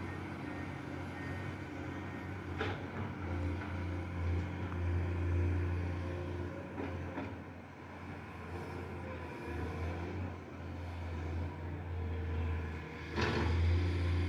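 Komatsu excavator's engine running steadily, its level swelling and easing as it works. A few sharp metallic knocks cut through: one a few seconds in, one about halfway, and a louder one near the end.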